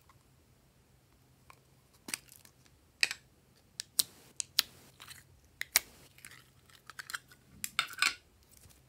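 Thin plastic tub crackling and clicking as fingers squeeze and flex it to work a block of clear blue jelly slime loose; sharp clicks come every second or so, thickening into a rapid cluster near the end as the slime comes free.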